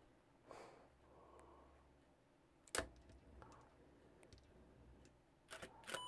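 Nikon D5500 DSLR firing its shutter from an ML-L3 infrared remote, heard as faint sharp clicks: one about three seconds in and a quick pair near the end.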